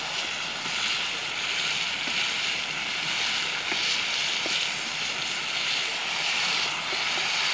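Meat sizzling steadily in a wok over a wood fire as it is stirred, the hiss swelling and easing a little every second or so.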